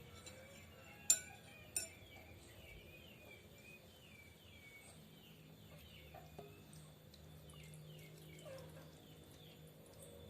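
Birds chirping in a steady run of short, falling notes, about two a second. Two sharp clinks of kitchen utensils stand out about a second in, the loudest sounds.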